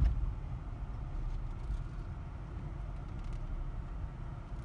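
Car moving slowly, heard from inside the cabin: a steady low engine and road rumble, with a bump right at the start.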